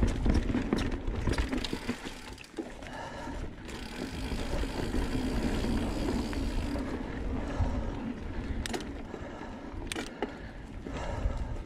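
Mountain bike (a 2019 Santa Cruz Blur C S) rolling down a dirt singletrack scattered with dry leaves: steady tyre and ride noise, with the bike rattling and a few sharp knocks as it goes over bumps.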